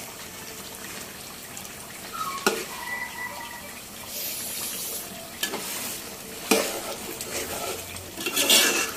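Aluminium cookware and a metal utensil knocking and scraping, with a brief metallic ring after the first knock, over the faint sizzle of the chicken curry cooking in the pot.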